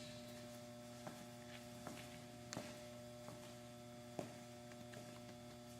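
Faint steady electrical hum, with a few faint ticks scattered through it.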